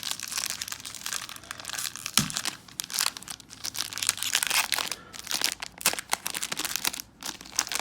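Plastic foil wrapper of a baseball card pack crinkling and crackling as it is handled, with many sharp crackles in quick, irregular succession.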